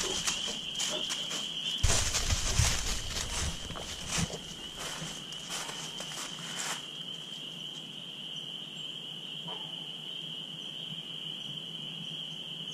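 Footsteps crunching through dry leaf litter for about the first seven seconds, then stopping. Under them, and alone afterwards, a steady high-pitched chorus of calling animals.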